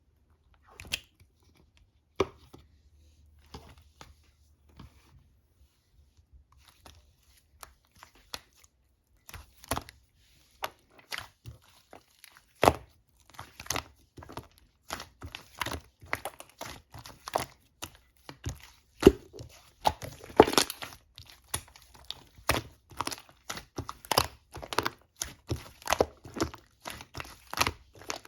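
Two-layer slime being mixed and pressed by hand, making sharp, irregular clicks and crackles. The clicks are sparse at first, then come thick and fast from about ten seconds in.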